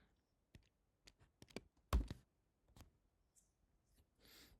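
Computer keyboard keystrokes typed at an irregular, unhurried pace, a dozen or so separate clicks, followed near the end by a soft breath.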